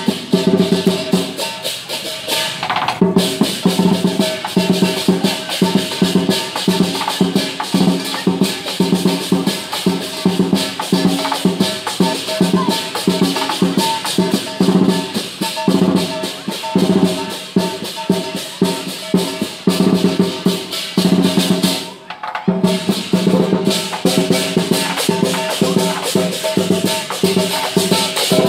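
Lion dance percussion: a large drum beaten fast with clashing cymbals and a ringing gong, in a dense, steady rhythm. It breaks off briefly about three-quarters of the way through, then resumes.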